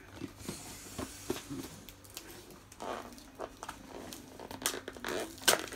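Cardboard box being opened by hand: scattered scrapes, rustles and tearing of paper and cardboard, with a sharp click near the end.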